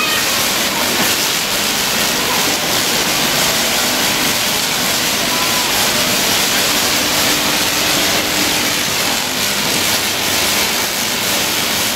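High-voltage electric arcs of an artificial lightning display discharging continuously: a loud, steady crackling hiss.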